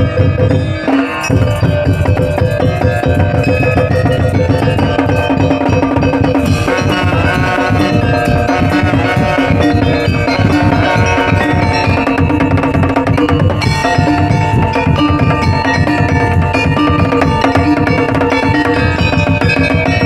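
Madurese daul ensemble playing loudly: busy drumming with melodic instruments holding pitched lines over it.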